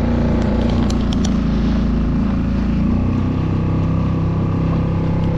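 Small outboard motor running steadily at cruising speed, pushing a skiff along, with the rush of water and wind beneath it.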